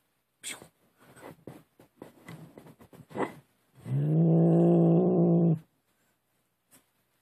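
Domestic cat giving one long, low, steady yowl of about a second and a half, starting about four seconds in, the warning sound of an agitated cat. It is preceded by a few seconds of faint short rustling noises.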